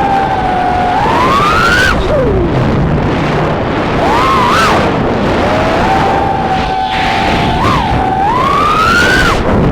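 3-inch FPV quadcopter's brushless motors and propellers whining in flight over a rushing noise. The pitch holds steady, rises sharply with throttle twice (about a second in and again near the end) and drops away each time, with short pitch blips in between.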